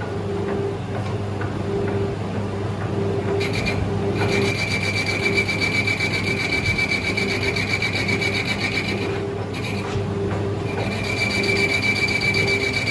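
Manual lathe running with a steady motor hum while the cutting tool cuts a thread into the spinning workpiece, giving a high, rapidly pulsing scraping whine. The whine starts about four seconds in, drops out near nine seconds, and comes back about eleven seconds in.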